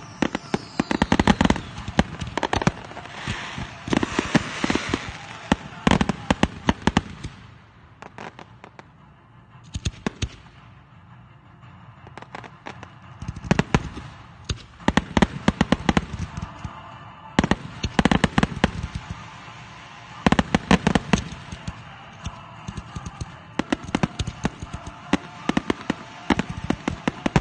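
Fireworks finale: rapid barrages of aerial shell bursts, bang after bang. The reports thin to a few scattered bangs for several seconds in the middle, then a dense barrage starts again.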